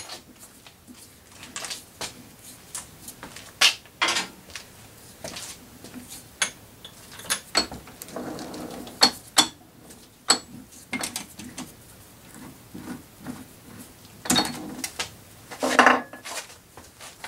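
Irregular metallic clinks and clicks of steel parts being handled at a lathe chuck as a threaded test piece and nut are worked loose. Several louder knocks come near the end.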